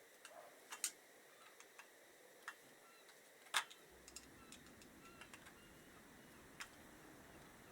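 Small metal carburettor parts and hand tools being handled during reassembly: a few scattered sharp clicks and taps, the loudest about halfway through.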